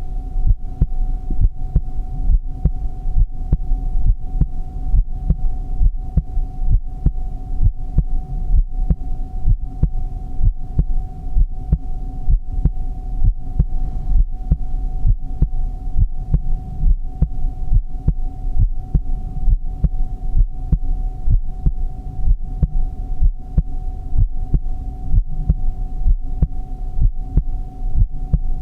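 Recorded human heartbeat: a steady, even rhythm of low thumps, over a continuous hum with a steady higher tone.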